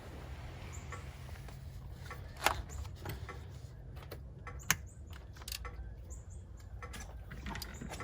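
Sharp metallic clicks of a fuel line socket and wrench being fitted and worked on a diesel injector fuel line nut, two of them louder, about two and a half and nearly five seconds in, over a steady low hum, with a few faint high chirps.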